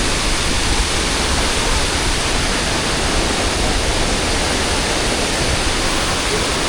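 Tumpak Sewu waterfall pouring down close by: a steady, loud rush of falling water, with wind and spray on the microphone.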